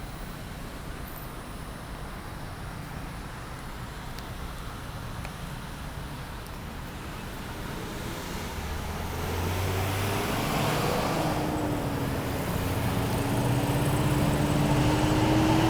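Road traffic: a steady hum of passing cars, then a vehicle's engine drawing nearer and growing louder over the last several seconds.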